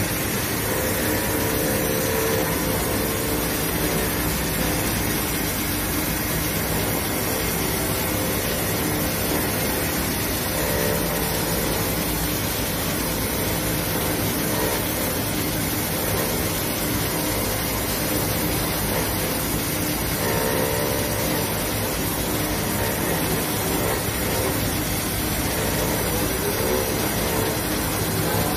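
Ring doubling and twisting machine running, its spindles making a steady, even whirring hiss, with a faint hum that comes and goes.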